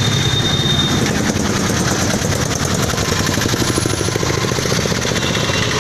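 A motor vehicle's engine running steadily at idle close by, a continuous low hum with a fast, even pulse.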